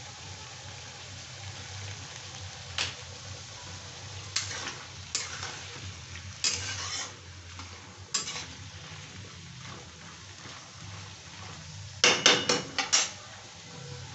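Flat metal spatula scraping and knocking against a metal kadai while onions and chickpeas are stir-fried, over a steady faint sizzle. The strokes come in scattered short runs, and a quick run of about four strokes near the end is the loudest.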